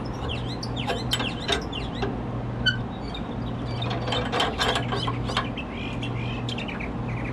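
Ratchet wrench clicking in irregular runs as it turns the screw of a large threaded clamp, tightening it to press a bent chrome car bumper straight. Birds chirp in the background.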